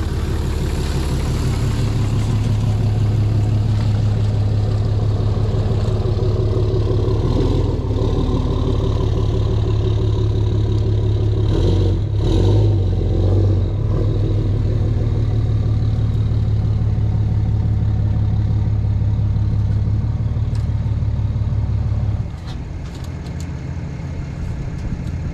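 Diesel engine of a Cat excavator running steadily under working load, swelling briefly about halfway, then dropping to a lower, quieter level near the end, with a few light clicks.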